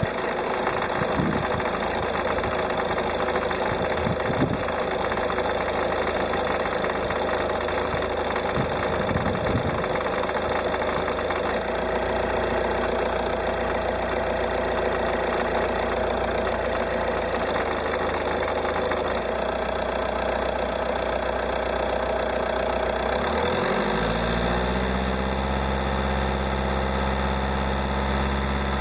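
Peugeot 308's 1.6 HDi four-cylinder turbodiesel idling just after a cold start, with a clattering knock that the owner hears only at cold idle, around 820 rpm, and not above about 900 rpm. About two-thirds of the way through the engine note shifts and settles into a steadier, more even tone.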